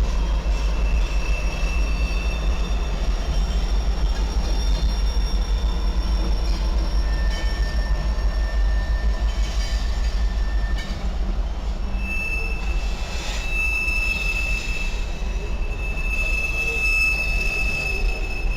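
A train rolling past on the rails with a steady low rumble, its wheels squealing in thin, steady high-pitched tones that come and go and are strongest in the second half.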